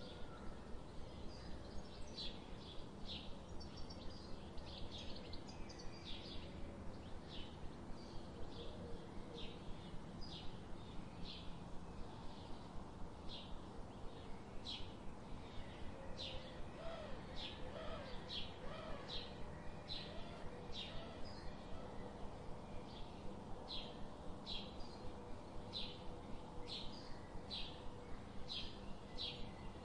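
A small bird chirping over and over, short high calls about one or two a second, over a steady low background hum.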